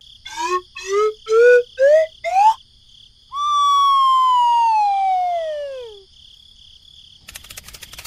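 Cartoon sound effects: five quick rising bloops, then one long descending slide-whistle glide. A fast, even ticking starts near the end.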